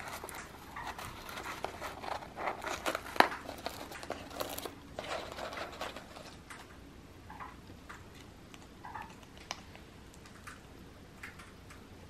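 An African grey parrot working at a paper-wrapped foraging box with its beak: paper crinkling and rustling with sharp clicks and snaps, busy through the first half, then fewer, scattered clicks.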